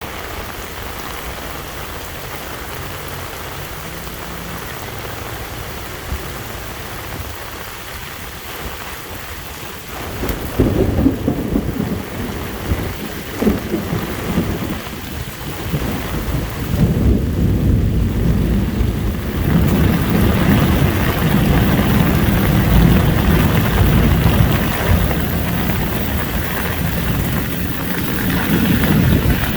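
Heavy rain falling steadily, then a loud crack of thunder about ten seconds in, followed by long low rolling rumbles that swell again and stay loud through the second half.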